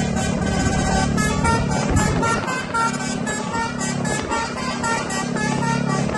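Indonesian bus 'telolet' multi-tone horn playing a quick melody of short notes, several a second, over a steady low hum.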